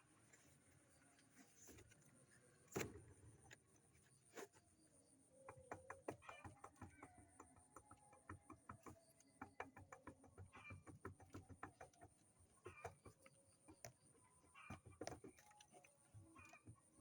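Near silence, with faint clicks and short bird calls starting about five seconds in.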